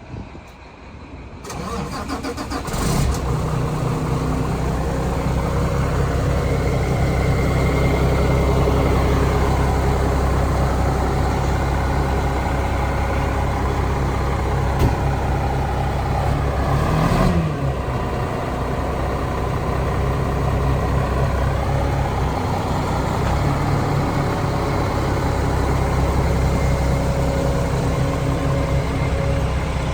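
Heavy-equipment diesel engine starting up about two seconds in, then running steadily, with a whine that dips and rises in pitch a few times.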